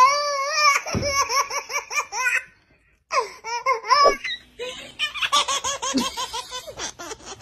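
Baby laughing hard: a high squeal breaking into quick rhythmic belly laughs, about five a second, a brief pause, then more bursts of laughter.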